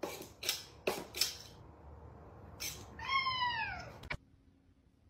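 A few short scratchy rasps, then a domestic cat gives one drawn-out meow, about a second long, that falls in pitch, followed by a sharp click.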